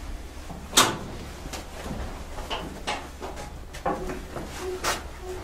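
Sharp metallic clicks and clunks of hand-worked levers and fittings on the stopped EMD 567B V16 diesel engine as it is readied for starting, a handful of separate knocks a second or so apart, with a few short squeaks near the end.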